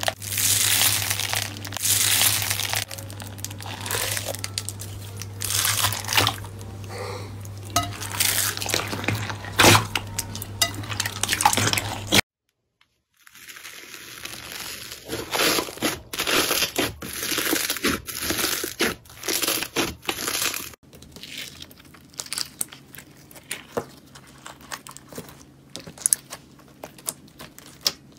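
Hands pressing and squeezing bead-filled slime, giving repeated crunchy crackling strokes, with a low steady hum under the first part. It cuts off for about a second near the middle, then crackles again as a second bead slime is pressed. In the last stretch the crackles are sparser and quieter.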